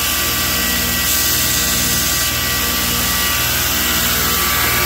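Single-phase electric motor, about 1.5 hp, driving a belt grinder and running steadily in reverse rotation, with an even hum and the whir of the abrasive belt.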